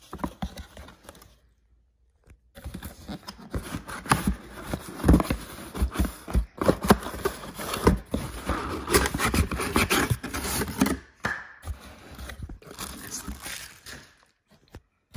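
Cardboard packaging being handled by hand: irregular scraping, rubbing and tearing of box flaps and a perforated cardboard insert, after a brief pause near the start.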